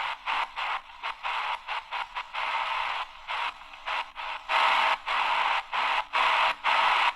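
AGPTEK R09 portable radio playing shortwave static through its speaker, broken by brief dropouts about three times a second as the tuner steps from frequency to frequency during a band scan.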